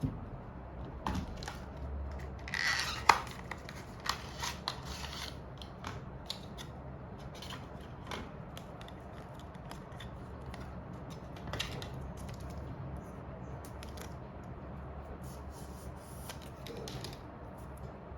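Small repair tools clicking and scraping on an iPhone 7 Plus while its battery is replaced. The handling is busiest a few seconds in, with one sharp click about three seconds in, then lighter scattered clicks over a low steady hum.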